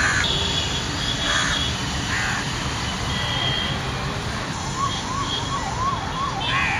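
A siren, its tone sweeping rapidly up and down about three to four times a second, starting about five seconds in, over steady outdoor background noise.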